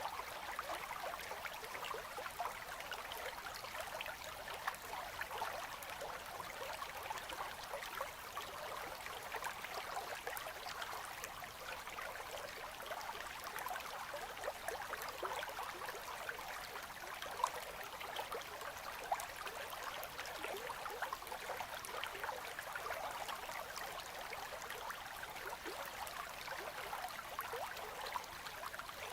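Gentle river current flowing and trickling between ice: a steady babble of small splashes and gurgles, with no low rumble.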